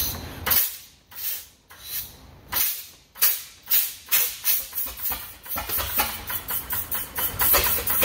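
1914 Holt 45 hp combine engine firing as it starts: sharp, hissy exhaust puffs, slow and uneven at first, coming faster and more regular until they run at about four a second as the engine catches.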